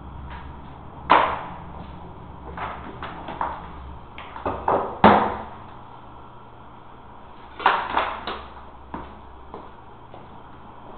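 Irregular knocks and clacks of hand tools and materials being worked on a floor: about a dozen sharp hits in uneven groups, the loudest about a second in and about five seconds in, over a steady low hum.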